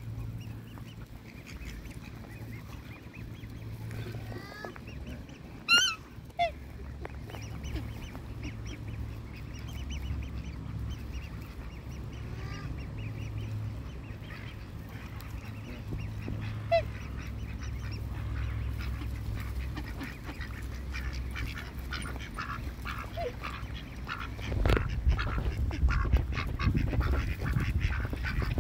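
Mixed waterfowl calling close by: black swans, Eurasian coots and ducks. There are a couple of loud, sharp, high calls about six seconds in, a scattered short call later, and a busy run of quacks and short calls near the end, over a steady low rumble.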